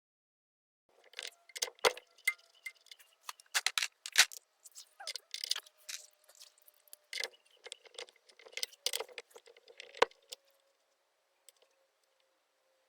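Irregular sharp metallic clinks and clatter with a faint ringing, from metal tools or bike parts being handled and knocked together. They begin about a second in and die away after about ten seconds.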